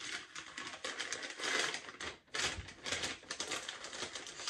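Crinkling and rapid crackling of an MRE flameless ration heater's plastic sleeve as the entrée pouch is pushed down into it.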